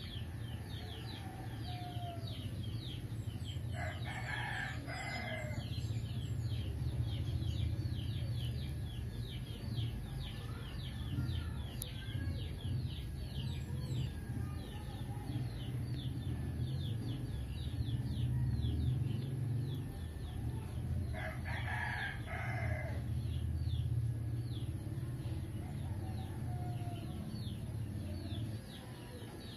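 A rooster crowing twice, each call about two seconds long, the second about seventeen seconds after the first. Under it runs a steady low hum and a continuous quick, high chirping.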